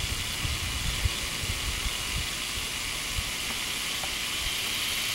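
Steady, high-pitched hiss of a summer insect chorus, with scattered low thumps on the microphone.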